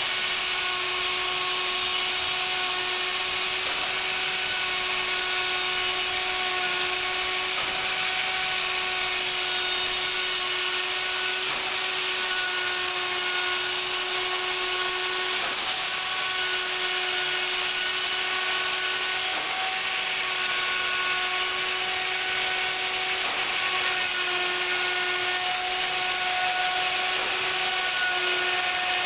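Electric wood router running with a steady high-pitched whine, cutting wood from a workpiece turning slowly on a lathe.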